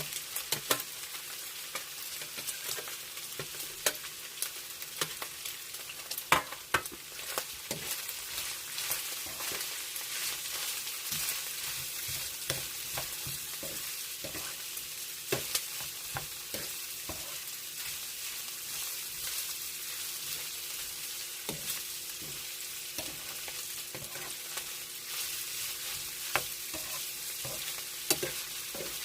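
Pork, garlic and onion sizzling in a frying pan while being stirred, with frequent sharp scrapes and clicks of the spatula against the pan over a steady hiss.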